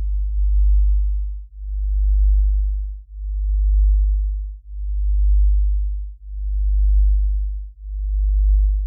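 A deep electronic hum that swells and fades in even pulses about every second and a half.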